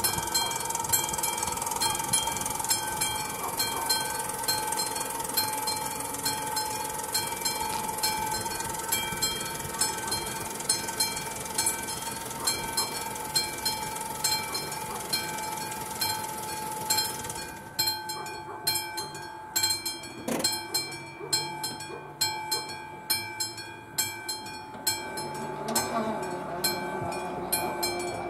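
Level-crossing warning bell ringing in evenly spaced strokes, about one and a half a second, while the AŽD 71 lights flash, signalling that a train is approaching. A steady rushing noise under it stops suddenly about two-thirds of the way through, and near the end a low hum joins as the barrier arms swing down.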